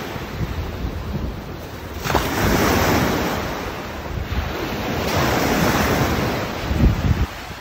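Waves surging in and breaking into foam on a grassy bank, with wind buffeting the microphone. The washes grow louder about two seconds in and come again in surges later on.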